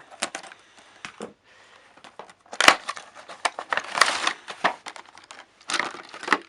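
Toy box packaging being ripped open and handled: irregular tearing, crinkling and sharp snaps, with the loudest rips a few seconds in.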